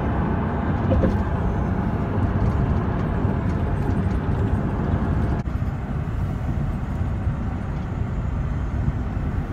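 Road and engine noise inside a moving car's cabin: a steady low rumble, with a brief break about halfway through.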